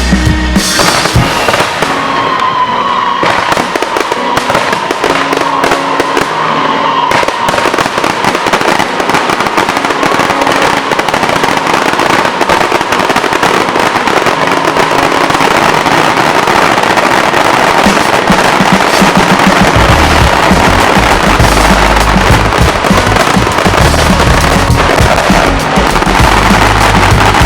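Aerial fireworks crackling and popping in a dense, continuous barrage, with a whistle sounding for several seconds a couple of seconds in. Deep booms build up in the last third.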